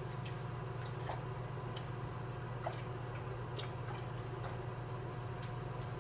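Steady low room hum with faint scattered ticks and clicks.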